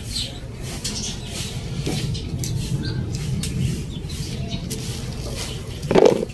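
Scissors snipping at bell pepper stems amid rustling leaves: a run of short, crisp snips and scratches over a low background hum, with one short, louder dull knock about six seconds in.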